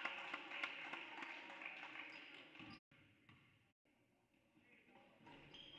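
Faint basketball-gym ambience with a low crowd murmur and a few light taps. About three seconds in, the sound cuts out and stays near silent for a couple of seconds, then the hall noise slowly returns.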